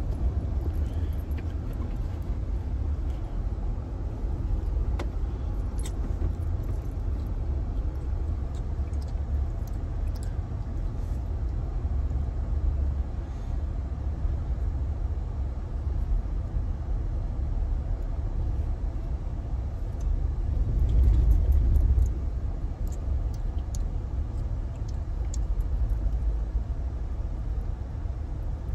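Steady low rumble of a car in motion, heard from inside the cabin, swelling louder for about a second around two-thirds of the way through.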